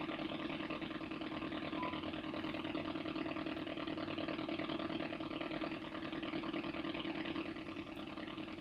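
Icom IC-R8600 receiver's speaker playing a 2.4 GHz Wi-Fi signal demodulated in AM: a steady, buzzy rasp. The volume drops a little near the end as the audio gain is turned down.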